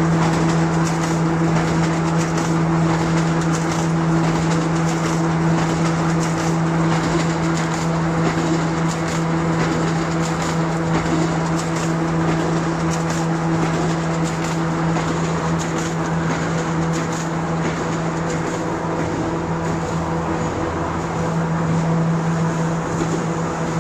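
Corrugated-carton two-colour printing and slotting machine running steadily: a constant mechanical hum with a low steady tone and its overtones. Faint ticks and rustles of cardboard sheets ride on top.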